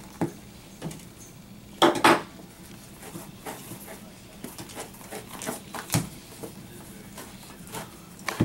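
Hands working leather lacing out of a baseball glove's web: scattered scrapes and light clicks as the lace is worked through the holes, with two sharp knocks just under two seconds in and another about six seconds in.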